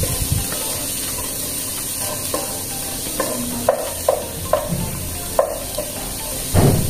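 Chopped vegetables sizzling as they sauté in oil in a stainless steel pot. A wooden spatula stirs them, scraping the pot in a few sharp strokes in the second half, with the loudest stroke near the end.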